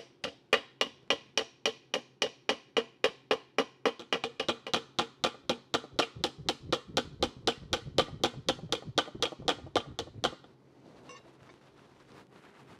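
Rapid, even hammer taps on the rim of a chrome 1969 Triumph TR6 Rostyle wheel cover, about four a second, working out a dent line. The tapping stops about ten seconds in.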